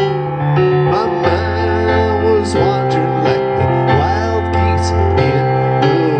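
Electric keyboard playing an instrumental passage: sustained bass notes under a lead melody that bends and wavers in pitch.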